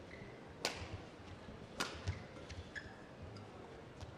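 Badminton rally: two sharp racket strikes on the shuttlecock a little over a second apart, then a few faint ticks and short squeaks, over a low steady arena background.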